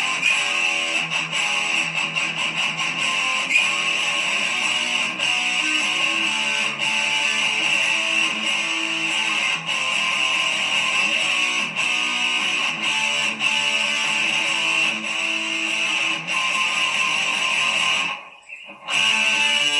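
Background instrumental music with a steady beat, cutting out briefly near the end.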